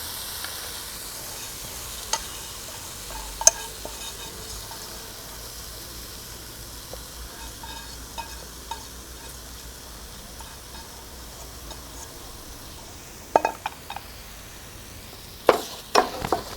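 Washed biryani rice frying in hot ghee with whole spices in a pan, a steady sizzle as it is stirred. A few sharp clicks of the stirring spoon against the pan, the loudest cluster near the end.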